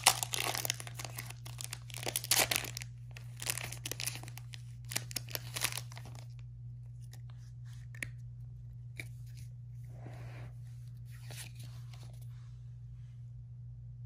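Plastic-foil wrapper of a Pokémon booster pack being torn open and crinkled for about six seconds. After that, only soft rustles and a few clicks as the cards are handled, over a steady low hum.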